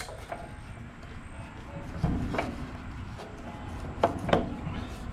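Short knocks and clunks of parts and tools being handled during fuel-line work on the engine, the clearest about two seconds in and again about four seconds in.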